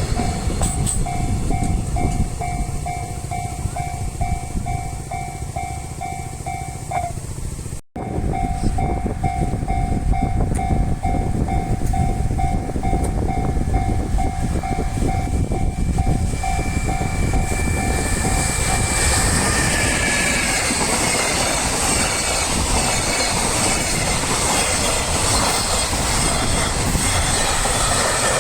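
Japanese level crossing alarm ringing its electronic bell in a steady repeating ding. About two-thirds of the way through, the bell stops as a train rumbles over the crossing with wheel clatter on the rails. A brief dropout near the first third marks a splice in the recording.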